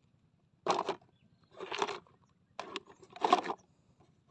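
Plastic toy trucks knocking and scraping against each other and a plastic tub as a toy garbage truck is set in among them: four short clattering bursts, the loudest about three seconds in.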